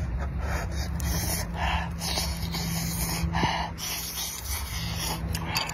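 Close-up mukbang eating sounds: a man chewing a mouthful of scallop and noodles, with short noisy breaths through the nose every half second or so, over a steady low hum.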